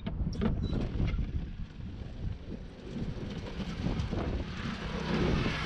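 Wind buffeting the microphone, over tap water running into a large plastic bottle.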